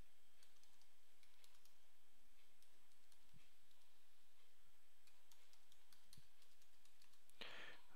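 Faint keystrokes on a computer keyboard as a password is typed: a scattered run of light clicks over a steady low hiss.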